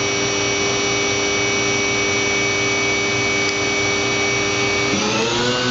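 Kitamura Mycenter 2X-if CNC vertical machining center spindle running steadily at 12,000 RPM with an even multi-tone whine, then about five seconds in the pitch rises as it spins up to 15,000 RPM. It runs smoothly with no vibration or harmonics, a spindle in good condition.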